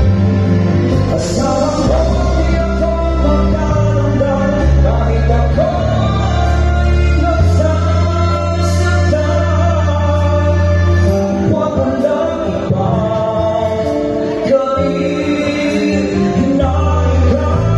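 A man singing a slow song into a handheld microphone over amplified backing music, with low bass notes that change every second or two under the voice.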